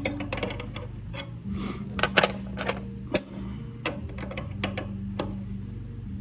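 Irregular metallic clicks and clinks from a steel pick and pliers working a jam nut on a stainless steel lifeline turnbuckle. Two louder clinks come about two and three seconds in.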